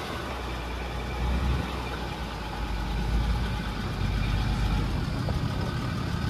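Land Rover Discovery 3 driving slowly along a gravel track: a steady low engine rumble with road noise, getting a little louder after about a second.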